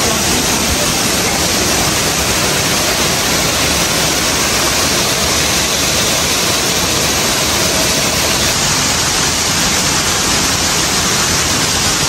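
Waterfall: water falling and splashing in a loud, steady, even rush.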